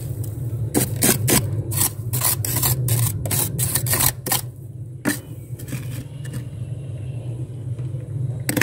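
Thick, flaky freezer frost being scraped, with a quick run of short scraping strokes for about four seconds and then only an occasional scrape. A low steady hum runs underneath.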